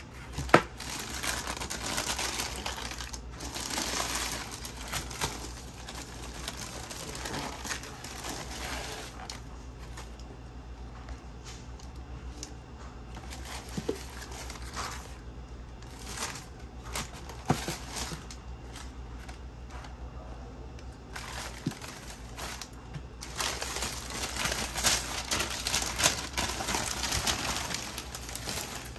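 Sneaker-box tissue paper rustling and crinkling as hands pull it back and lift it, coming in spells, with a few sharp knocks, the loudest about half a second in.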